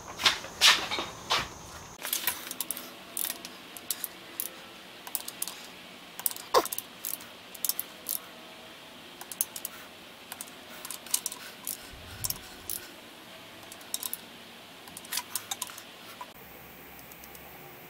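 Wrench clicking and clinking on the connecting-rod cap bolts of a Porsche 944 engine as they are run down toward 30 ft-lbs: sharp metallic clicks in quick, irregular clusters.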